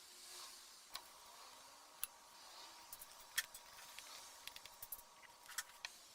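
Scattered sharp clicks and light taps of small parts and tools being handled during restoration work, the loudest about three and a half seconds in, over a faint steady high hum that stops near the end.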